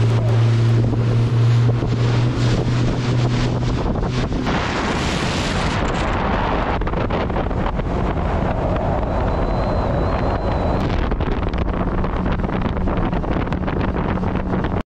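Mercury outboard motor driving a boat at speed across open water, with heavy wind buffeting the microphone and water rushing past the hull. The motor's low running note stays steady under the wind.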